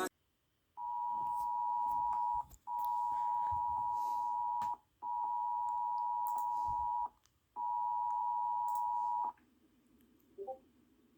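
Emergency alert receiver beeping: four long electronic tones at one steady pitch, each about two seconds long, separated by short gaps.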